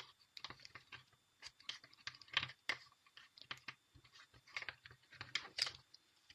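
Irregular light clicks and taps of a small plastic glue stick being handled and worked into a slime mixture.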